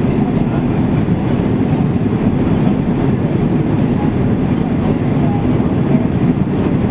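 Steady low rumble inside a Boeing 767-300ER cabin: engine and airflow noise, even throughout with no thumps or changes.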